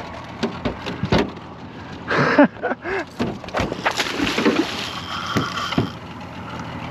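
Scattered knocks and clatter on a small fishing boat as a hooked fish is played, with a brief louder pitched sound about two seconds in.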